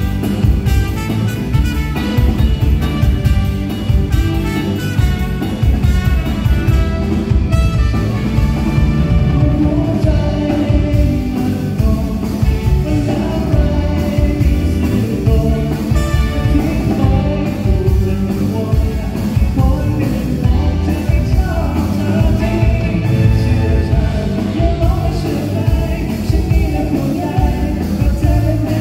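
Live band music: drums, bass and other amplified instruments playing over a steady beat, with a lead singer's voice.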